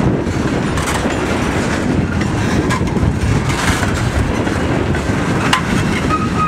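Freight train tank cars rolling past: a steady rumble of steel wheels on the rail with clickety-clack over the rail joints, and a brief thin squeal near the end.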